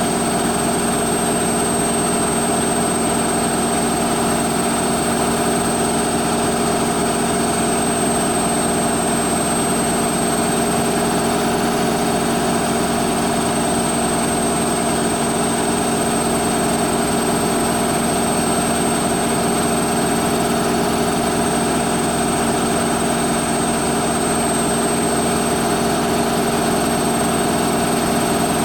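Hoover Quattro front-loading washing machine in its fast final spin, the drum and motor running at a steady high speed. It makes an even mechanical hum with several held tones, without speeding up or slowing down.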